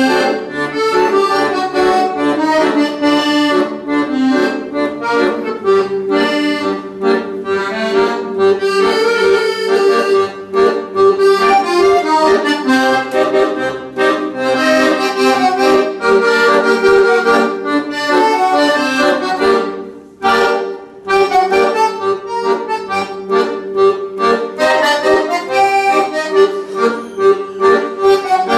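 Solo accordion playing a tune, a moving melody over held lower notes, with a brief pause about twenty seconds in.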